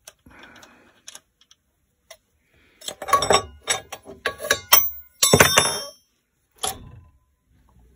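Steel spanner and bolts clinking and clanking against the lathe's metal motor mount as the motor is loosened: a run of sharp clinks from about three seconds in, then a loud ringing metallic clatter around five seconds in, and one more knock.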